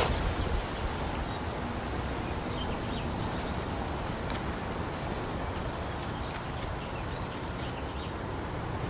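Forest ambience: a steady rushing wash of noise with faint, short bird chirps every second or two.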